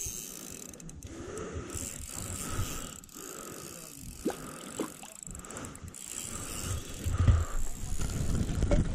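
Spinning reel being cranked steadily while a hooked fish is reeled in.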